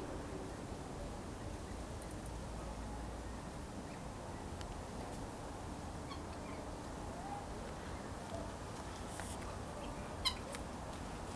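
Domestic guinea fowl giving a few faint short chirps and squeaky calls over steady background noise, with a single sharp click about ten seconds in.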